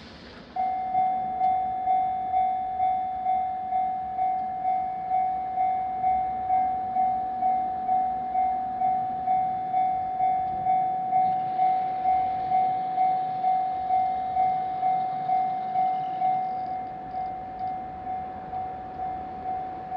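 Japanese railway level crossing's electronic warning bell ringing, a repeating ding a little over twice a second. It starts about half a second in and drops in volume about three-quarters of the way through.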